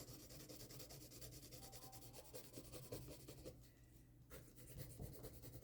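Faint pencil scratching on drawing paper: light, short strokes with a brief pause a little past the middle.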